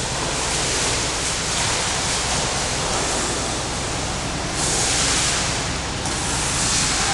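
Water splashing and churning from a swimmer's front-crawl strokes in a pool, a steady rush with a louder stretch about five seconds in.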